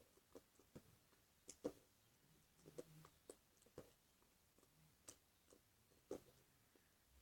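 Clicky glossy slime being squished and stretched by hand: faint, irregular small clicks and pops.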